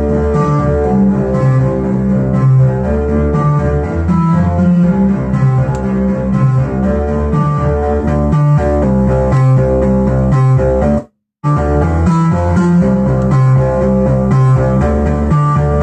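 Synthesizer music from Behringer MS-1 and Pro-1 analog synths, played through a Behringer Virtualizer Pro DSP2024P effects processor: a heavy bass line under a busy pattern of sustained, string-like notes. The sound cuts out completely for a moment about eleven seconds in.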